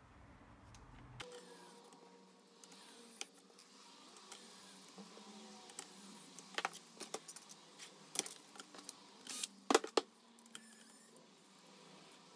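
Precision screwdriver and small screws on a plastic laptop drive caddy: scattered light clicks and taps, sparse at first and busiest in the second half.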